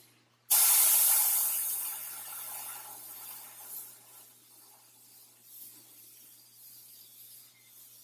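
Meng MT-001 Vermilion Bird airbrush spraying thinned paint in a fine line: the air hiss starts suddenly about half a second in, is loudest at first and fades over the next few seconds to a faint hiss.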